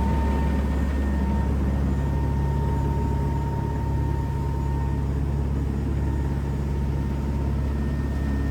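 Fishing boat's engine running steadily underway: a constant low hum with a faint steady whine above it.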